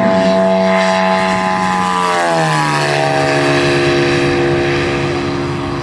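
The 450 cc engine of a 12-foot-wingspan radio-controlled P-47 Thunderbolt model running hard on a low pass. Its pitch drops about two seconds in as the plane flies by, then it runs steady and fades slightly near the end.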